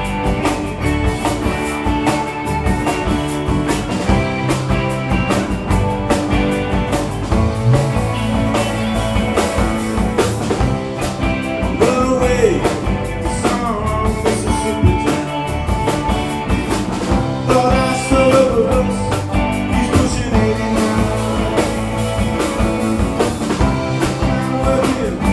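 Live alt-country rock band playing with a steady beat: electric and acoustic guitars, bass guitar and drum kit.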